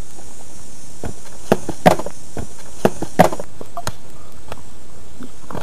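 A handful of sharp taps, two of them in quick pairs about a third of a second apart, over a steady background hiss.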